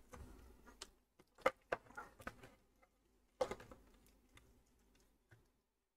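A few sharp clicks and light knocks of plastic connectors and cables as power cables are handled and plugged into a graphics card, the loudest about a second and a half in and again about three and a half seconds in, with near silence near the end.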